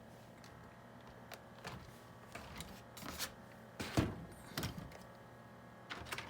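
Small plastic parts of an RC truck body being handled and pressed together: a string of irregular light clicks and taps, the loudest knock about four seconds in, as a side-view mirror piece is fitted into its holes.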